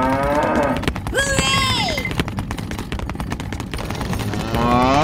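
A dense, steady crackling rattle throughout, with a pitched cartoonish sound effect of falling and level tones about a second in, and a cow's moo rising in pitch near the end.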